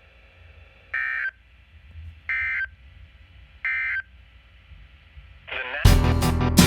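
Emergency Alert System end-of-message data code from NOAA Weather Radio: three short, identical digital bursts about a second apart, signalling the end of the severe thunderstorm warning. Near the end a brief voice fragment is cut off and guitar-led music starts loudly.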